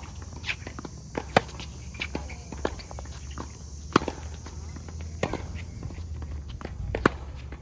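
Tennis ball struck on forehands with a racquet: three sharp hits about three seconds apart, the last the loudest, with softer bounces, distant return hits and footsteps between, over a steady low rumble.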